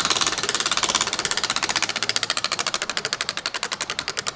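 Spinning selection wheel ticking: rapid clicks that gradually slow down as the wheel loses speed.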